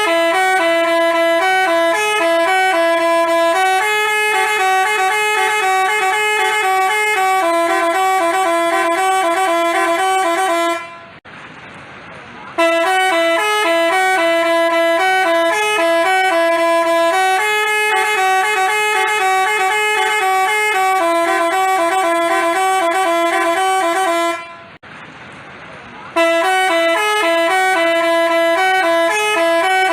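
Basuri telolet musical bus horn playing its multi-note tune. The melody steps quickly between pitches in phrases of about twelve seconds, cut by two short pauses, one about eleven seconds in and one near twenty-five seconds, before it starts again.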